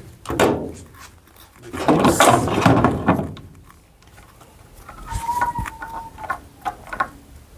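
Parts being handled: sharp plastic clicks and a rustling, scraping stretch about two seconds in, with a brief squeak about five seconds in, as a washing machine's control board and wiring clips are fitted back in place.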